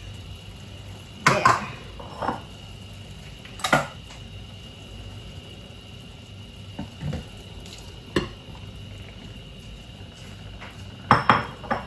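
A utensil clinking and knocking against a pot of boiling pasta a handful of times while stirring, over a faint steady background of the boiling water.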